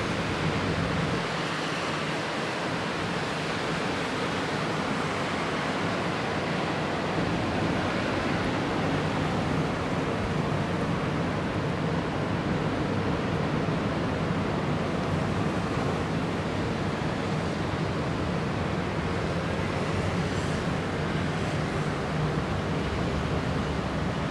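Typhoon storm noise: a steady, even rush of wind that hardly changes in level.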